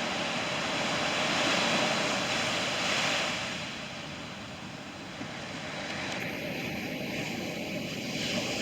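Steady rushing noise of ocean surf and wind on the microphone at the shore. It eases off slightly in the middle and shifts in tone about six seconds in.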